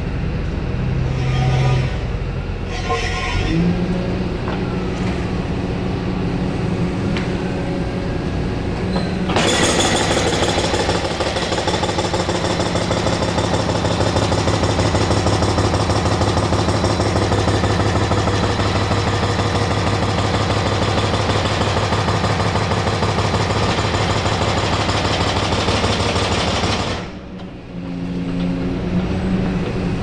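Excavator engine running, rising in pitch about three seconds in. About nine seconds in, the excavator's hydraulic breaker starts hammering in a rapid, steady stream of blows for about seventeen seconds, then stops abruptly, leaving the engine running.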